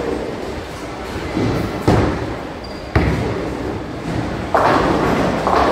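Bowling alley din: bowling balls rolling on the lanes, two sharp thuds about a second apart, and a longer clatter of pins near the end.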